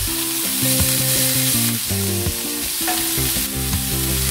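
Sautéed onions sizzling in a nonstick frying pan as cooked fish is tipped in and stirred with a spatula. Background music plays a melody of held notes.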